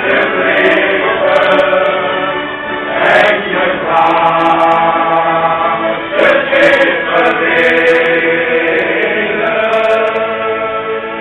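Men's shanty choir singing with accordion accompaniment, with long held notes.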